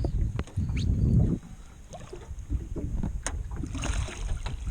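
Wind buffeting the microphone over water lapping against a small boat, with a few light knocks. The low rumble is strongest for about a second near the start, then drops away.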